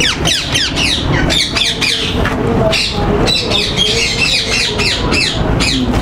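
Many ringneck parakeets screeching at once: shrill, overlapping calls, each sweeping quickly downward, following one another without a break.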